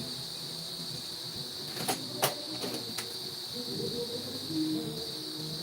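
Steady high-pitched chirring of crickets in the background, with three sharp clicks about two to three seconds in.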